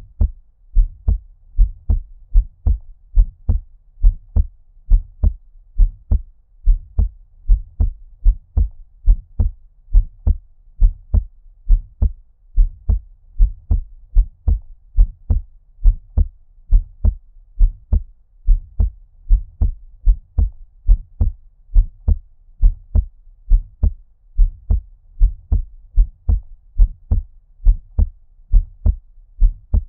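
Heartbeat at a normal resting rate: a steady run of paired low lub-dub thumps. It is muffled and dull, as if heard underwater.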